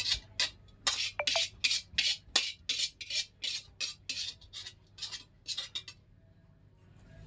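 Metal spatula scraping the inside of a metal wok, emptying stir-fried fern onto a plate: quick rasping strokes about three a second, stopping about six seconds in.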